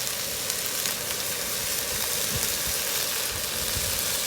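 Scallops frying in butter in a pan, sizzling steadily with fine crackles.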